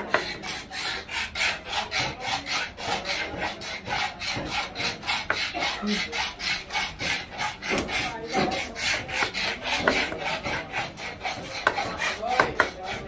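Steel knife blade being sharpened with a hand-held stone, in quick even rubbing strokes at about four a second, with a couple of sharp knocks near the end.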